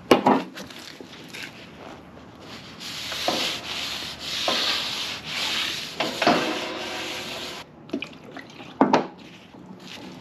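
Blue shop towel wet with acetone rubbed back and forth over the sanded steel face of an ATV snow plow blade, a scratchy wiping sound in several swelling strokes through the middle. A sharp knock at the very start and another near the end.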